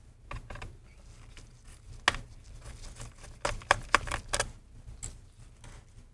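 Light clicks and taps of a small Torx screwdriver and gloved fingers working the screws out of a laptop's bottom cover. One sharper click comes about two seconds in, and a quick run of them about three and a half to four and a half seconds in.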